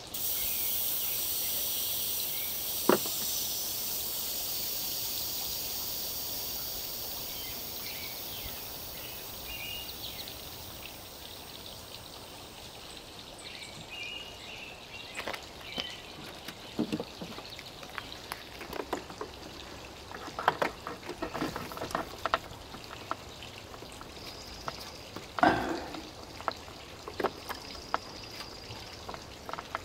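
Pressure hissing out of a cooling-system pressure tester fitted to the coolant reservoir, fading away over about twelve seconds as the cooling system is decompressed after the pressure test. After that come scattered light clicks and knocks of a hand tool working at a coolant hose by the throttle body.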